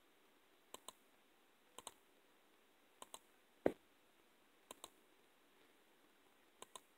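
Typing on a tablet's on-screen keyboard: faint key clicks, each a quick double click, five times spaced about a second apart. A single louder, deeper thump comes a little past halfway.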